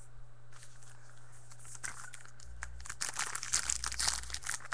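Foil wrapper of a baseball card pack crinkling as it is handled and torn open, faint at first, then loud and crackly from about three seconds in.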